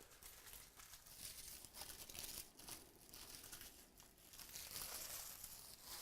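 Faint crinkling and tearing of plastic wrapping as a box of trading cards and its packs are opened, in short irregular crackles.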